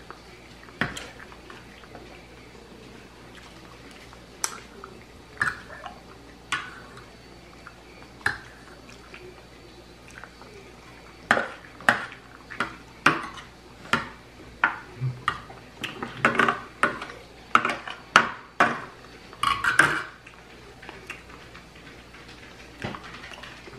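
Metal fork tapping and scraping against a plate while eating: a few scattered clicks at first, then a quick run of them for about ten seconds.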